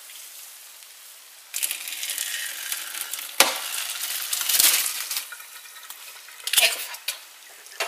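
Mushrooms and the water they released in cooking poured from a stainless steel saucepan into a plastic colander in a steel sink: liquid splashing starts about a second and a half in, with a few sharp knocks along the way. This is the draining of the mushrooms' own water after cooking them dry.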